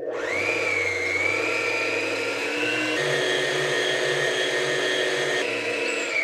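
Electric stand mixer running at high speed, its motor rising to a steady whine as it whisks egg whites and sugar into a meringue. The pitch starts to fall as it winds down at the very end.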